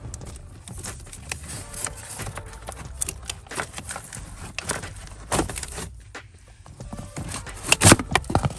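Plastic heater blower motor cover being worked off its housing under the dashboard: a string of irregular plastic clicks, knocks and scrapes, with the loudest knocks about eight seconds in.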